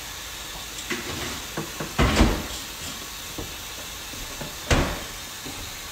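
A refrigerator door and the things inside it being handled: scattered small clicks and knocks, with two heavy thumps, one about two seconds in and another near five seconds.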